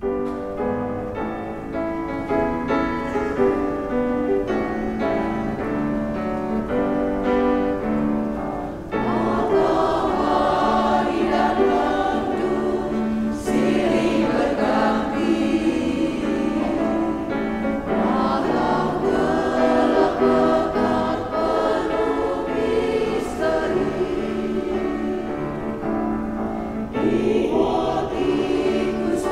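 A choir of women's voices singing a slow hymn in Indonesian. For the first nine seconds a quieter instrumental introduction plays steady held chords, and then the choir comes in fuller and louder.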